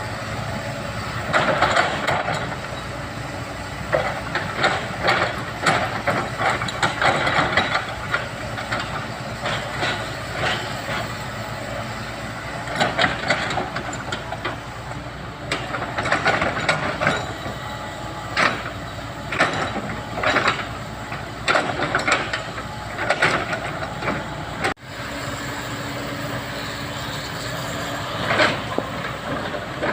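Komatsu hydraulic excavator working: its engine runs steadily under repeated loud bursts of scraping and clatter as it digs and loads earth.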